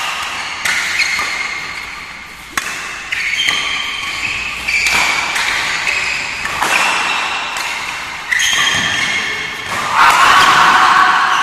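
Badminton doubles rally: rackets striking the shuttlecock in a string of sharp smacks about one to two seconds apart, with short high squeaks between them, typical of shoes on the court mat.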